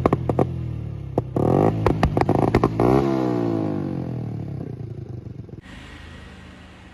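Honda CD 70's small single-cylinder four-stroke engine blipped twice, with sharp popping backfires from the exhaust, then the revs fall away slowly and the sound fades.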